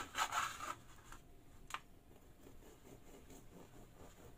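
Knife sawing through the crust of a baked brioche: a rasping stroke in the first second, then a single light click a little before two seconds.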